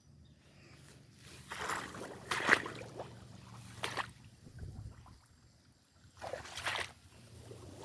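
Motorcycle engine running slowly with a steady low hum, under three noisy rushing swishes of water sloshing as it moves through wet, waterlogged track.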